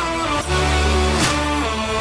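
Background music: guitar-led instrumental with a steady bass and beat.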